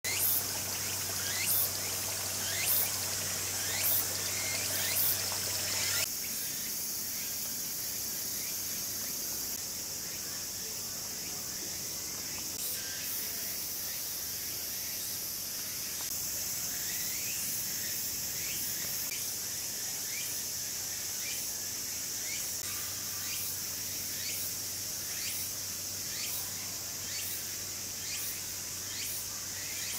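Steady high-pitched insect chorus, with regular louder pulses about once a second during the first several seconds. A low steady hum sits underneath at the start and again in the last part.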